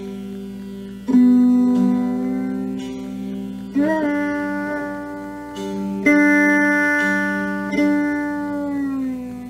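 Rudra veena played in a slow alaap of raga Bihag: four single plucked notes, each ringing on for two seconds or more and bending in pitch with slow slides between notes, the last gliding downward near the end, over a steady low drone.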